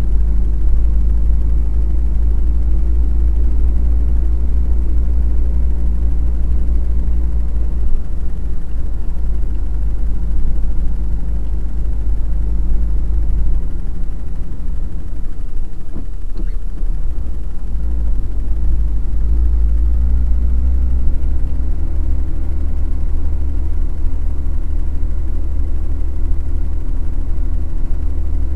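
Truck engine running while driving, heard from inside the cab as a steady low rumble. The engine note weakens around the middle and comes back strongly a few seconds later.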